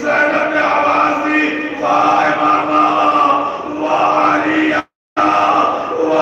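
Men's voices chanting on long held notes, with a brief cut to silence about five seconds in.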